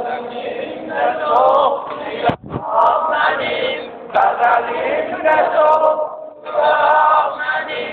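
A large group of men chanting an Ashura mourning lament in unison. The chant comes in phrases of about a second or so, with short breaks between them.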